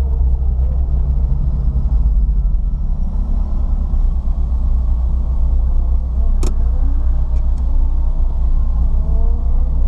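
Ford Fiesta ST lapping a track, heard inside the cabin: a steady low drone of engine and road noise, with the engine's pitch rising near the end as it accelerates. One sharp click about six and a half seconds in.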